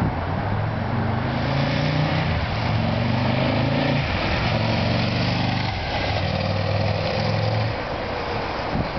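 Aprilia RSV Mille sport bike's V-twin engine accelerating hard along the street. The pitch climbs, drops back a couple of times at gear changes, and fades out near the end.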